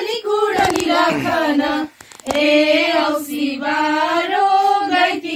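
A group of women singing a Nepali Bhailini (Tihar) song together, with a short break about two seconds in before the next line.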